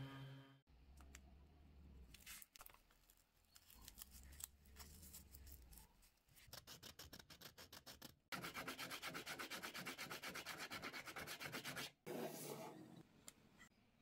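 Hand sanding a wooden stick with sandpaper wrapped around it, rubbing and scraping strokes. The strokes are faint and uneven at first, then from about six seconds in they become quick, regular back-and-forth strokes, several a second, loudest in the last part. A power sander's hum cuts off at the very start.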